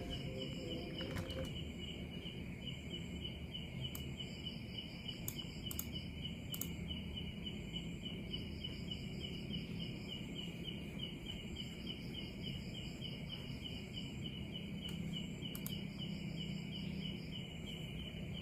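Crickets chirping in a steady run of short pulses, a few a second, with a higher insect trill switching on and off, over a low hum.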